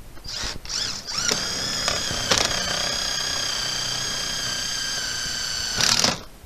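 Cordless drill-driver driving a screw through synthetic thatch into an aluminium track: two short whirs, then a steady run of about five seconds, with a louder spurt just before it cuts off.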